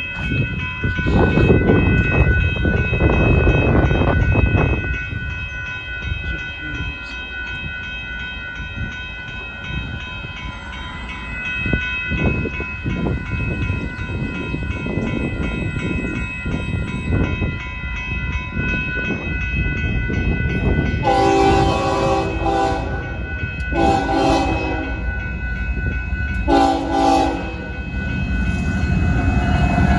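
Union Pacific freight locomotive's horn sounding three blasts about two-thirds of the way in, the first two longer than the last, over the steady rumble of the approaching hopper car train and a steady high-pitched ringing.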